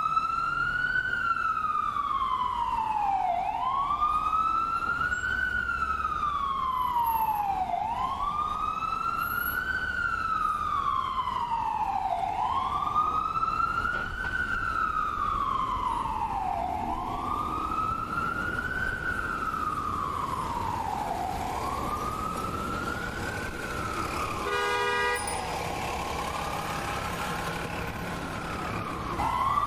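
Ambulance siren in a slow wail, rising and falling in pitch about every four and a half seconds, over a low road rumble. After about twenty seconds the wail fades, a brief sharp tone sounds about twenty-five seconds in, and the loud wail comes back right at the end.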